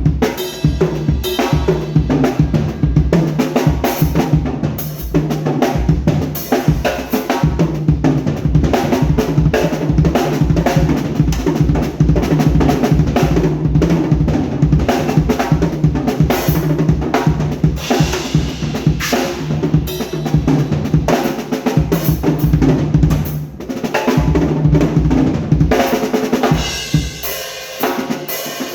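Pearl Roadshow five-piece acoustic drum kit played with its raw, unprocessed sound: fast, dense patterns on kick, snare and toms, with cymbals crashing and ringing near the end as the kick drops out.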